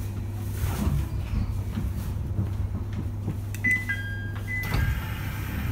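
Steady low electrical hum of an E721-series electric train standing at a platform with its doors open, with a few short high beeps about four seconds in. The hum stops with a thump near the end.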